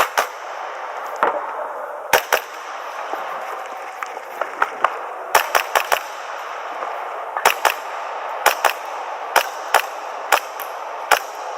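Airsoft pistol fired through a practical-shooting course of fire: about seventeen sharp cracks, many coming in quick pairs, over a steady hiss of background noise.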